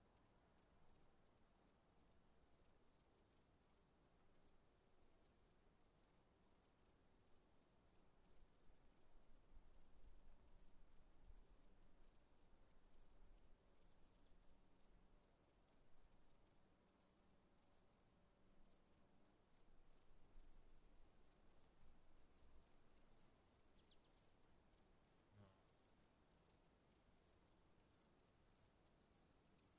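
Faint insects: a steady high-pitched drone with a regular chirp repeating about three times a second. A single faint knock comes late on.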